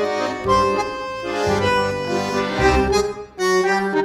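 Background music: sustained melody notes over a bass line that changes about once a second, breaking into two short chords near the end.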